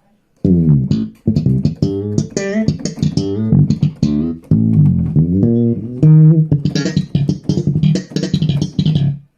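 Bass guitar played alone: a run of quick notes with sharp attacks, starting about half a second in, broken twice by short gaps, and stopping just before the end.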